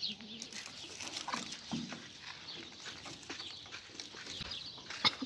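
A flock of sheep shuffling and moving about in a pen, with scattered hoof scuffs and faint farm-animal calls. A single sharp knock comes about five seconds in.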